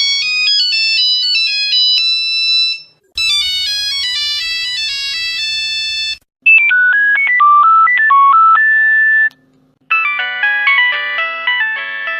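Nokia mobile phone ringtones played one after another: four short melodic excerpts of about three seconds each, split by brief silent gaps. The first is a thin, high beeping melody; the later ones are lower and fuller, with chords and a steady low drone underneath.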